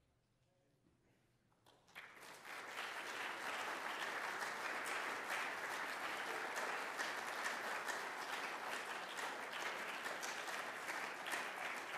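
A hush of about two seconds, then an audience breaks into applause that holds steady.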